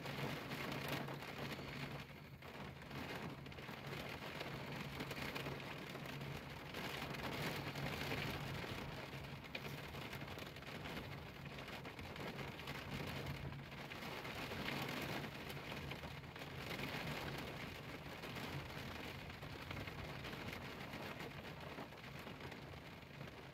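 Rain falling steadily on a car windshield, rising and easing a little in strength, with a low steady hum underneath.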